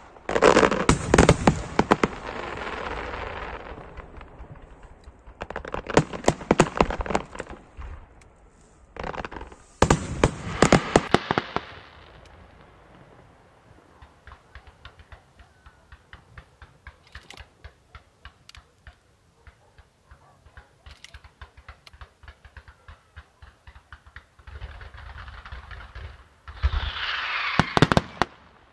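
Fireworks display: aerial shells bursting with sharp bangs, in three rapid salvos over the first dozen seconds. A stretch of quieter scattered pops and crackles follows, and a dense barrage of bangs returns near the end.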